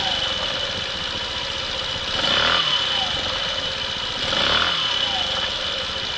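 A 125cc motorcycle engine running while standing still, making the abnormal noise its owner is recording. The sound swells about every two seconds, each swell followed by a short falling tone, over a steady high whine.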